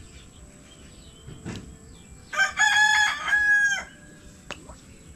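A rooster crowing once, a call about a second and a half long that starts a little over two seconds in.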